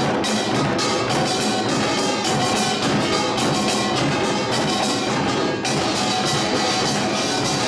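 Samulnori percussion ensemble playing a fast, driving rhythm: dense rapid strokes of the kkwaenggwari small gong clanging over janggu and buk drums. The clatter breaks off briefly about five and a half seconds in, then goes on.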